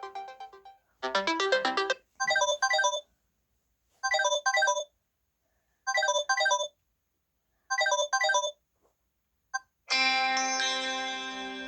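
Mobile phone ringtones played one after another: a melodic tone fades out, then an electronic ring of short double notes repeats about every two seconds, four times, and near the end a new ringtone with sustained plucked-sounding notes starts.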